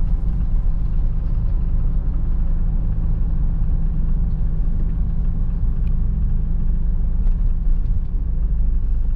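Steady low rumble of engine and road noise inside a moving car's cabin at highway speed.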